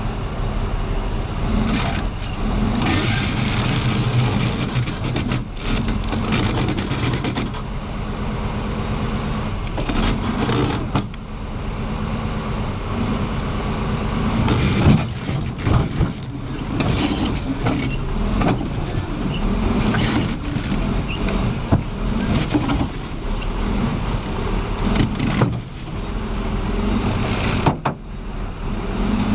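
Heavy vehicle engine running steadily, with scattered knocks and clatter over it.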